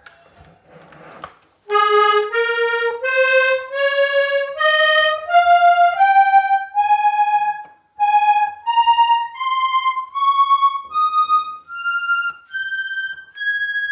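Hohner Corona III diatonic button accordion in BbEbAb tuning playing a scale one note at a time. The notes begin about two seconds in and climb steadily in pitch, roughly two a second, with a short break near the middle.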